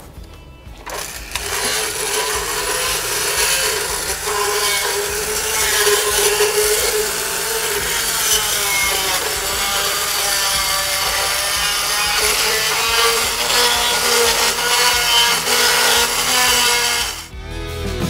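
Motorized equine dental float grinding down sharp enamel points on a horse's upper cheek teeth. A steady motor whine under a grinding noise, its pitch dipping and wavering as the burr bears on the teeth. It starts about a second in and stops suddenly near the end.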